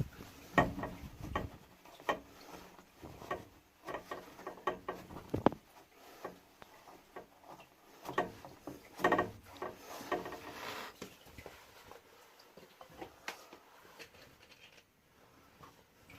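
Irregular clicks, knocks and short scrapes of tools and tap parts being handled during a tap repair, with a brief squeak about nine seconds in.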